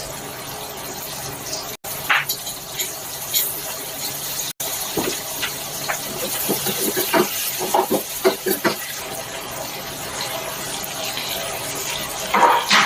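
Water running steadily, with a run of light clinks and knocks in the middle and a louder knock near the end.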